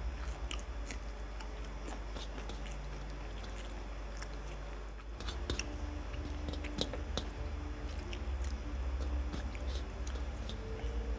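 People eating rice and curry with their hands: chewing, and many small wet clicks of fingers mixing rice on steel plates, scattered all through. A low steady hum runs underneath.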